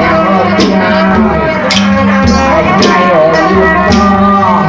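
Ensemble music for a Khmer-Thai mamuat spirit-medium dance: a steady drone under a wavering melodic line, with a sharp drum stroke about once a second.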